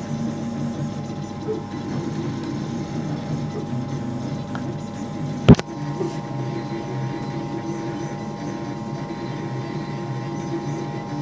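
Up Mini 2 3D printer running mid-print: the print-head motors churn in shifting low tones over a steady hum. One sharp click about halfway through.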